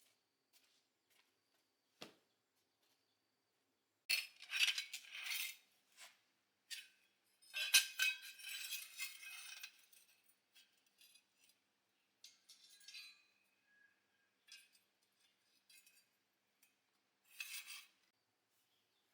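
Small metal parts and tools clinking and rattling, in a few short bursts with scattered light clicks between.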